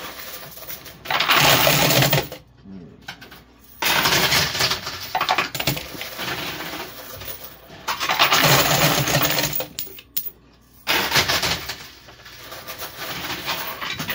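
Coin pusher machine clattering: quarters and plastic poker chips shoved and tumbling in four bursts of one to three seconds each, with a low hum under them.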